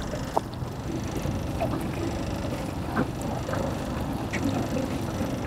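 Steady water and wind noise around a small fishing boat, with a few light knocks and clicks.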